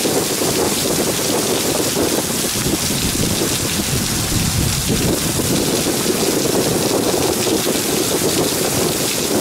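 Steady heavy rain falling on a ship's flight deck in a thunderstorm, an even hiss without breaks.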